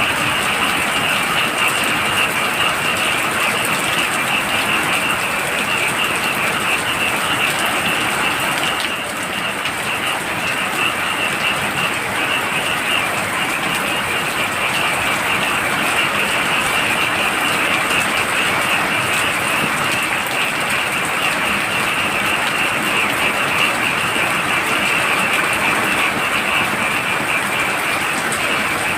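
Heavy rain falling steadily, with a dense chorus of frogs calling in a fast, shrill trill.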